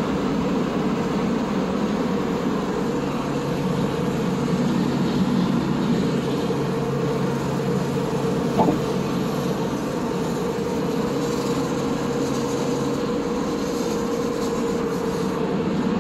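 Car driving at highway speed, heard from inside the cabin: a steady engine hum over tyre and road noise. One short click about halfway through.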